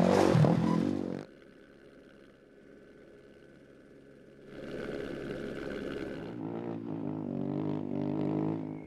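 Rally motorcycle engines: one bike passes close at speed in the first second, then after a few quieter seconds another bike is heard running hard for about four seconds before the sound cuts off near the end.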